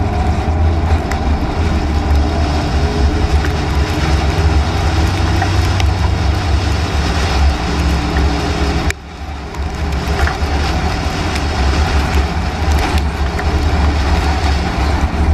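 Steady rumble of road and wind noise inside a moving vehicle. It drops away briefly about nine seconds in, then returns.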